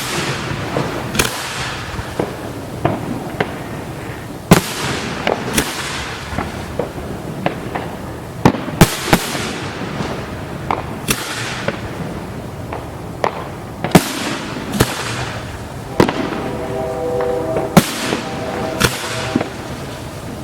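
Fireworks display: a rapid series of sharp booms from aerial shells, about one every second or so, many followed by a fading crackling hiss as the bursts trail off.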